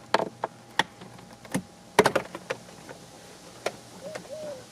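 Irregular plastic clicks and knocks from an Audi A4 B6's lower dash trim panel being pulled free and handled, with a quick cluster of sharper clacks about two seconds in.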